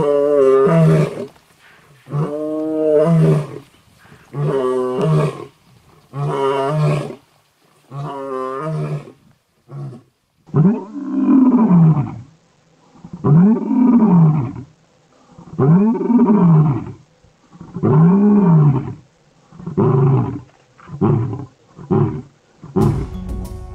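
Lion roaring: a long series of deep calls about every two seconds, the later ones rising and falling in pitch, growing shorter and quicker near the end.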